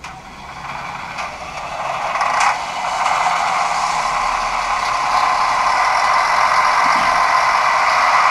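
HO-scale model train running along the track: a mechanical whirring rattle of its small motor, gearing and wheels. It grows louder over the first three seconds as the train comes closer, then holds steady, with a sharp click about a second in and another near two and a half seconds.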